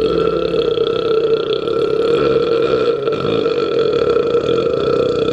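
A man's long belch, held at a steady pitch without a break.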